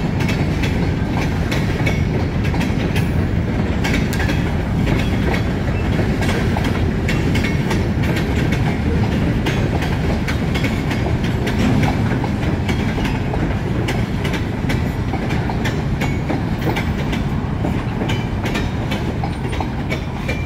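Freight train rolling past: a steady heavy rumble of the cars with a rapid, irregular clicking of steel wheels over the rail joints.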